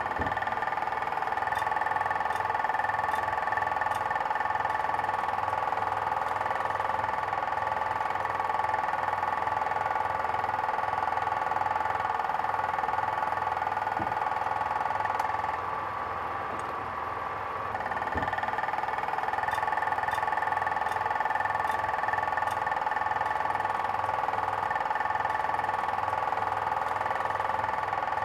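Film projector running: a steady mechanical whirr with a high hum and a fast low flutter, dipping briefly a little past halfway.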